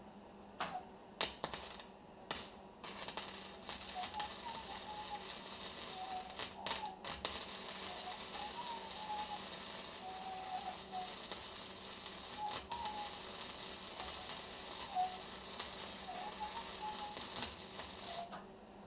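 Arc welding steel pipe onto a garden-tractor frame. A few short strikes in the first three seconds, then the steady dense crackle of a continuous weld bead, which cuts off suddenly near the end.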